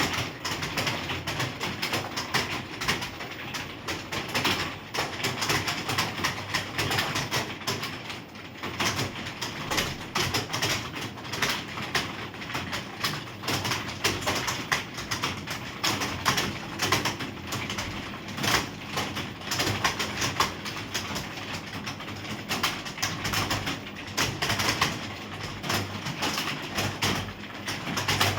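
Computer keyboard typing: rapid, continuous keystroke clatter with no pauses longer than a moment, over a faint steady low hum.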